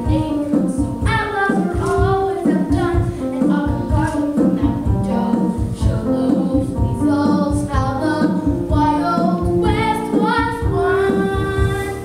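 A song sung by female and children's voices over instrumental accompaniment with a steady beat.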